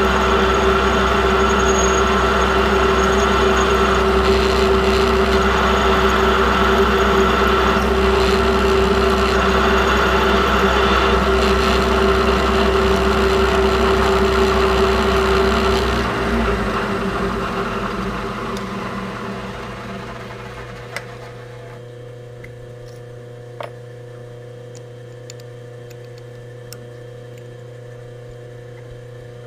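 Milling machine spindle running steadily with a drill bit in the chuck, then switched off about halfway through and winding down over several seconds. A quiet low hum remains, with a couple of light clicks near the end.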